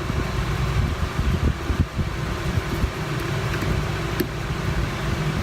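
Small screw being driven with a screwdriver to hold down an M.2 SSD, heard only as a few light clicks. They sit over a steady, fan-like background hum and hiss, which is the loudest sound throughout.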